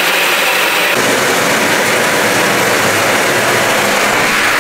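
Water from a hose spray nozzle drumming on a thin, bare (unpainted) metal roof sheet, as heavy rain would: a loud, steady rush of spray on metal. About a second in the sound takes on more low rumble.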